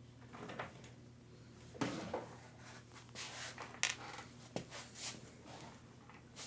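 Small clicks, rattles and rustles of hands sorting through small screws and parts, with a heavier knock a little under two seconds in and a sharp click near four seconds, over a steady low hum.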